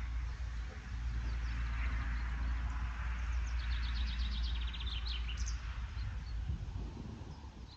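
Birds chirping, with a rapid trill in the middle, over a steady low rumble that eases off near the end.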